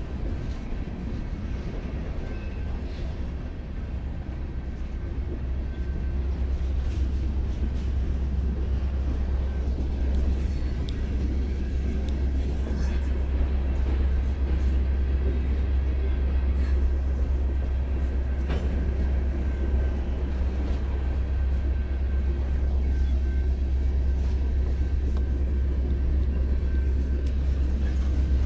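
BNSF diesel freight locomotive approaching, a steady low rumble that grows louder about four to eight seconds in and then holds, with a few faint clanks.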